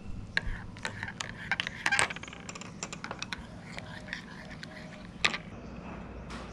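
Metal teaspoon stirring coffee in a ceramic mug, clinking against the cup's sides in quick, irregular taps. The loudest clinks come about two seconds in and after about five seconds.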